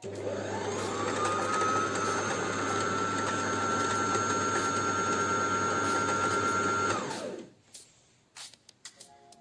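Brother LS14s sewing machine running: its motor winds up over the first second or so to a steady whine, runs evenly, then winds down and stops about seven seconds in.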